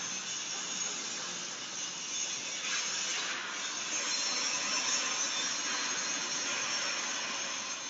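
Steady hissing noise from factory machinery, swelling a little in the middle and easing toward the end.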